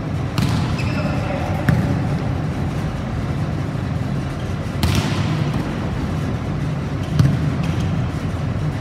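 A volleyball being struck by players' hands and arms during a rally in a large gym hall: a few sharp hits, several seconds apart, over a steady hum of the hall, with brief voices.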